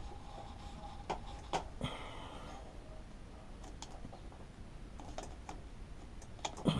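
Scattered light clicks and taps of hands and small parts working on a mini bike's fuel line as a rubber fuel hose is fitted, with a few sharper knocks about a second in and again near the end.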